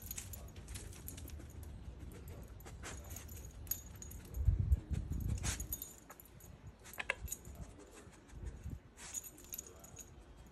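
Dog's collar tags jingling in scattered clinks as it noses and moves about, with a short burst of low rumbling noise about halfway through.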